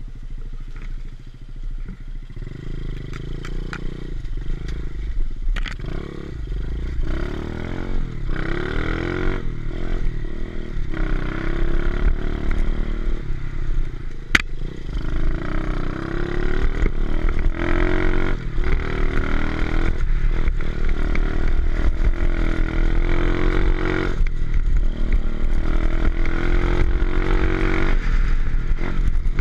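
A 125cc pit bike's single-cylinder four-stroke engine running on the trail, held low at first, then revving up and down repeatedly from about eight seconds in. There is one sharp click about halfway through.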